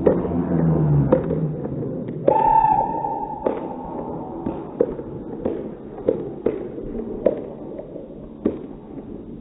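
A football being kicked on artificial turf in an echoing indoor hall: about a dozen sharp, irregular knocks. A shout falls away at the start, and a held call lasts about a second, starting about two seconds in.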